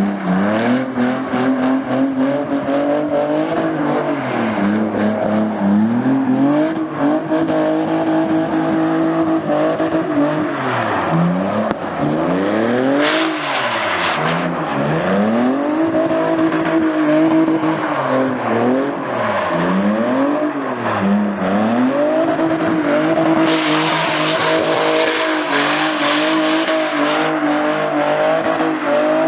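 Car engine revving hard, its pitch climbing and dropping again and again and held high for several seconds at a time, with bursts of tyre squeal about halfway through and again near the end, as in a burnout.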